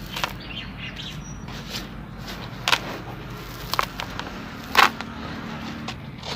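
Chunks of dry sand-cement crumbling, with a few separate crunches, the loudest near the end.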